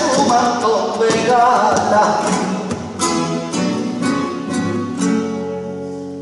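Flamenco song: a man sings over two acoustic flamenco guitars. The voice stops about three seconds in, the guitars strike a few sharp chords, and the last chord rings and fades away.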